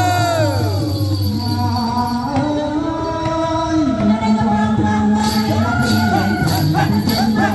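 Traditional Khmer Trot dance music: singing over a gliding, stepping melody line and a steady low drone, with rhythmic jingling percussion coming in about five seconds in.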